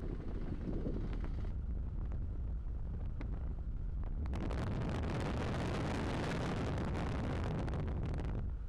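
Wind buffeting the microphone, a low rumble at first. About four seconds in it becomes a steady, fuller rush of air, the airstream past the open, strut-braced airframe of a Cimbora glider in gliding flight.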